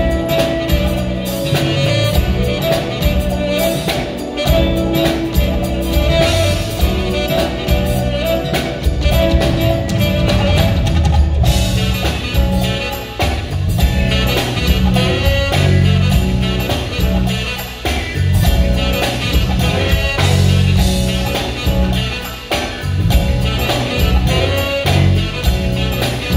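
Live smooth jazz band playing: a saxophone lead over drum kit, bass, electric guitar and keyboards, with a steady beat throughout.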